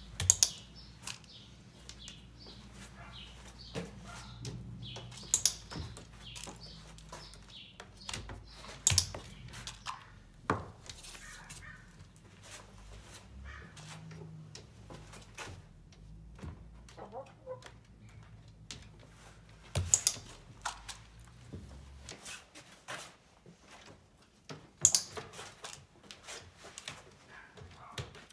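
Orpington hen making soft clucks and chirps in a small room, with several sharp knocks several seconds apart, which are the loudest sounds. A steady low hum runs underneath and stops about three quarters of the way through.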